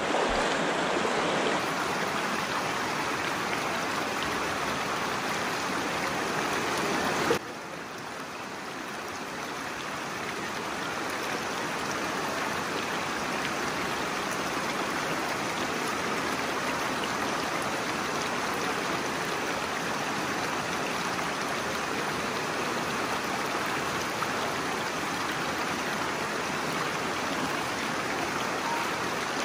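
River water flowing steadily as a continuous wash of noise. About seven seconds in it breaks off with a brief click, turns quieter, and slowly swells back to the same steady level.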